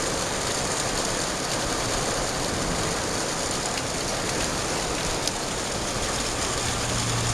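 Heavy rain falling steadily, an even dense hiss of rain striking surfaces. A low steady hum joins near the end.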